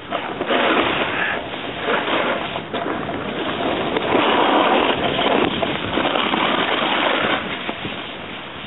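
Rushing noise of wind on the microphone and of riding over snow while moving down a ski run. It swells louder from about four to seven seconds in, then eases.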